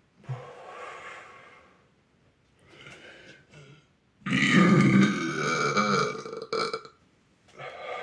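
A boy burping: softer sounds early on, then one long, loud burp starting about four seconds in and lasting over two seconds, with another beginning near the end.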